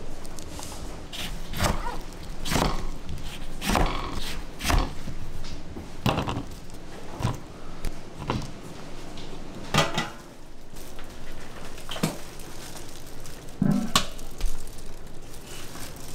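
Irregular knocks and clinks of kitchen prep work, with metal bowls and utensils being handled, coming roughly once a second with a few longer gaps.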